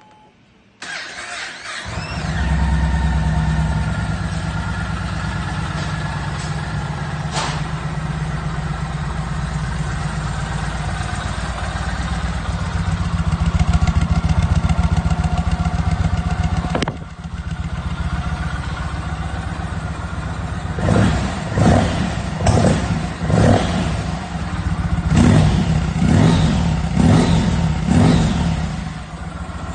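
Yamaha MT-01's big air-cooled V-twin cranked on the starter for about a second, then catching and settling into a steady idle. Later it takes a series of short throttle blips, each rev dropping straight back before it returns to idle.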